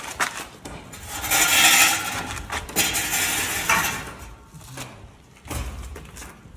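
Metal clanking and scraping, with a loud harsh scrape about a second in and scattered knocks after it, typical of steel balustrade pieces being handled and worked.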